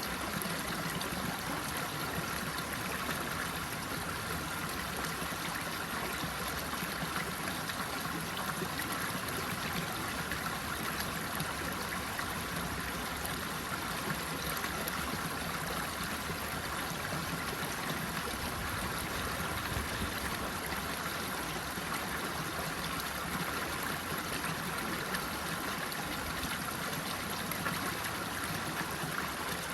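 Running water rushing steadily and evenly, without pause or change.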